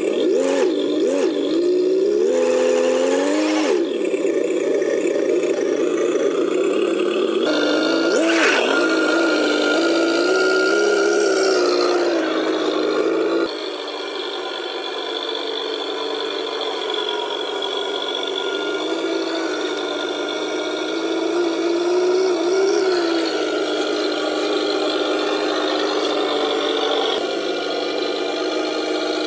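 Simulated diesel engine sound from the sound unit on a 1:10 Tamiya Unimog 425 RC truck, its pitch rising and falling with the throttle as the truck crawls. The sound changes abruptly a few times.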